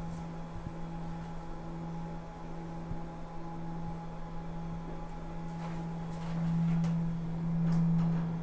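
A 1999 Mitsubishi hydraulic lift running with the car in travel: a steady low hum with a fainter higher whine, swelling louder in the last two seconds.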